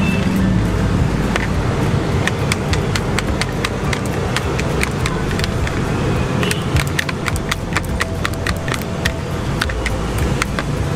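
Rapid light clicks of chopsticks knocking against a wire noodle strainer and bowl as freshly boiled noodles are tossed loose. The clicks start about two seconds in and come thickest in the second half, over a steady low rumble.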